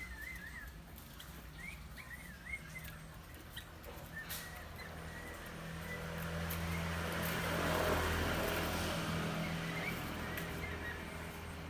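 Small birds chirping in short, wavy, warbling notes, most in the first few seconds and a few near the end. Under them runs a low steady hum, and a rushing noise swells to a peak about eight seconds in and then fades away.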